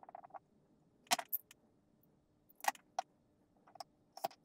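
Sharp clicks and small metallic clinks, about half a dozen spread over a few seconds, from pliers working at the end of a plastic 12-gauge shotgun shell held over a glass jar.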